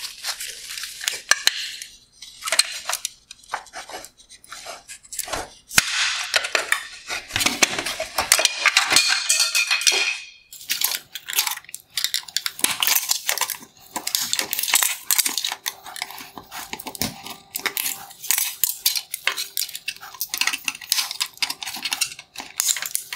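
Hard plastic and metal headlight parts clicking, cracking and clinking as plastic-welded reflector bowls are snapped off the LED bracket and the LED boards are handled on a wooden bench. A busy run of sharp clicks and rattles, thickest from about six to ten seconds in and again through the second half.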